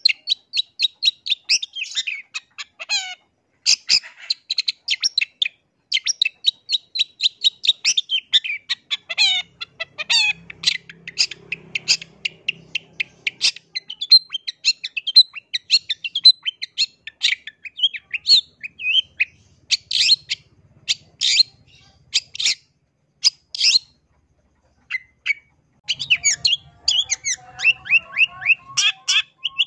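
Long-tailed shrike (cendet) in full song: a rapid chatter of short, sharp, high notes, several a second, thinning out after the middle with a brief pause about three-quarters of the way through before it starts again.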